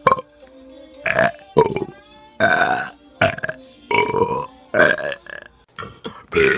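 A series of short, loud human belches, one after another with brief pauses between, about eight in all.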